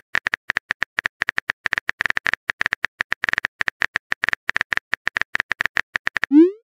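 Texting-app keyboard sound effect: a rapid, steady run of short clicks, one per letter as a message is typed. Near the end comes a short rising swoosh as the message is sent.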